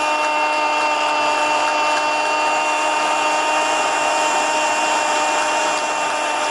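Football radio commentator's drawn-out goal cry, one note held steadily without a break, over a cheering stadium crowd.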